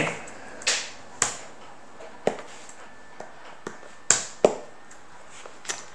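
Stylus tapping and clicking against a pen tablet while writing: about eight short, sharp clicks at uneven intervals.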